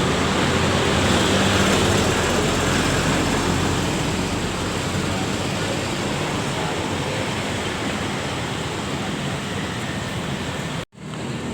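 A large bus's diesel engine running close by amid heavy road-traffic noise, with a steady low hum under a wide rush of noise that slowly grows quieter; it cuts off abruptly near the end.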